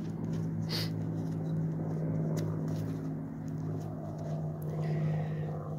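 A steady low hum with overtones, with faint scrapes and a few soft clicks of a gloved hand handling and rubbing dirt off a freshly dug relic.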